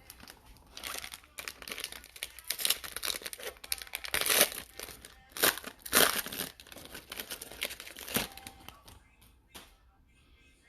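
A foil trading-card pack being torn open and its wrapper crinkled by hand: a run of crackling rustles, loudest in the middle, dying away near the end.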